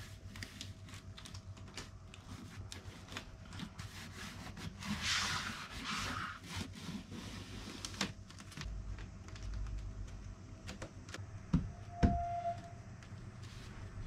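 Scattered light clicks and taps with a brief rustling, scraping stretch about five seconds in: rattan cane webbing being handled and pressed onto a wooden panel with double-sided tape.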